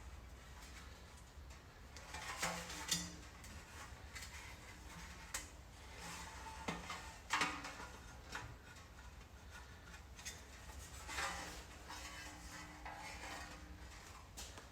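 Faint, scattered clinks and scrapes of metal as the transmission oil pan and its new gasket are handled and fitted, over a steady low hum.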